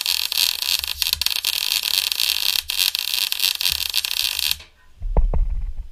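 Wire-feed welder arc crackling steadily while welding plates together, cutting off suddenly about four and a half seconds in. A low thud follows near the end.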